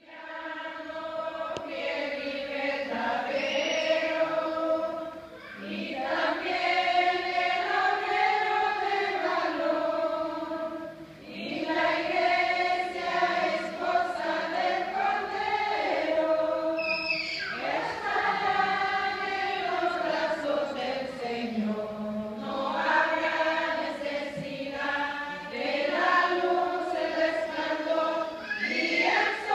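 A choir singing a slow melody in long held phrases, with brief pauses between phrases.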